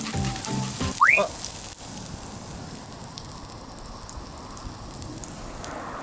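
A brief stretch of background music, ending about a second in with a quick rising tone, then steady sizzling and crackling of meat and onions frying in an iron frying pan over a campfire.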